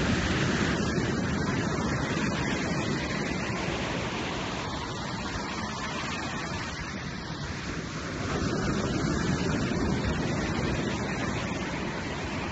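Ocean surf rushing onto a beach, a steady roar of breaking waves that swells near the start and again about two-thirds of the way through.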